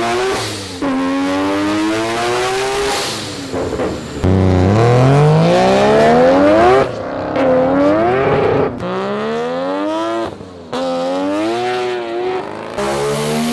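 Three-rotor Mazda rotary engine revving hard and accelerating through the gears. The engine note climbs steadily and drops back at each upshift, about four times. About four seconds in comes a sudden, louder full-throttle launch.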